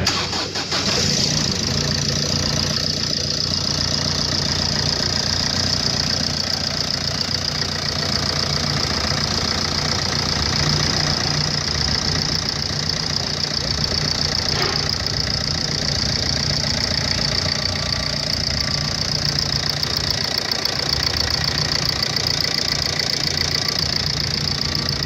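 2009 Ford Transit Connect's 1.8-litre 8-valve diesel engine (code RWPA) idling steadily.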